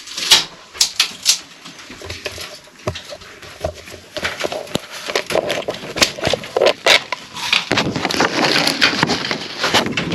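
Handling noise from an action camera being moved and repositioned: a run of irregular clicks, knocks and rubbing close to the microphone, with a denser stretch of rustling near the end.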